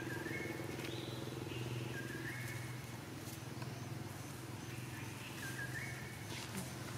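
Short animal calls that step up in pitch, heard three times, with a fainter higher call about a second in, over a steady low hum.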